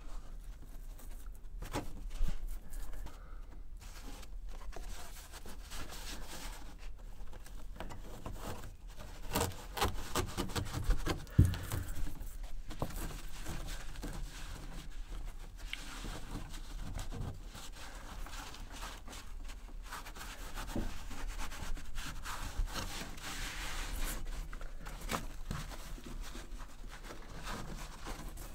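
Carpet being rubbed and pressed by hand onto a VW Beetle's sheet-metal floor pan, an irregular scraping and rustling, with a few louder thumps near the middle.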